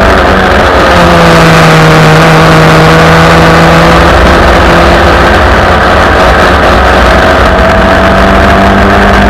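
1971 Merlyn MK20 Formula Ford's 1600 cc Ford Kent four-cylinder engine running hard at racing speed. Its pitch holds high, sags slightly, then climbs slowly near the end, over a heavy low rumble.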